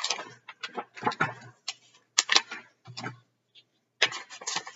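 Pages of a large paperback picture book being opened and turned by hand: irregular paper rustles and crinkles with a few sharp taps, thickest about four seconds in.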